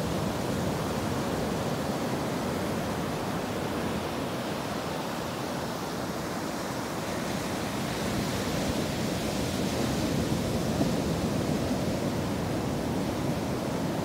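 Ocean surf breaking and washing up a sandy beach, a continuous rushing that swells a little about eight seconds in.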